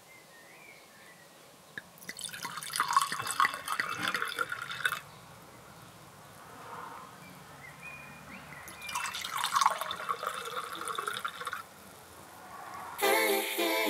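A drink poured into two cut-crystal glasses, one after the other: two pours of about three seconds each, and the drink foams as it fills each glass.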